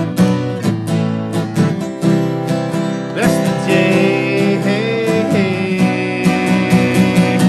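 Live band playing an instrumental passage of the song, led by strummed acoustic guitar, with a higher wavering melody line coming in a little over three seconds in.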